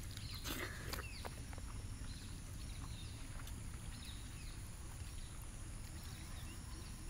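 Quiet outdoor ambience: faint bird chirps scattered throughout over a low steady rumble, with a steady high whine and a few soft clicks in the first second.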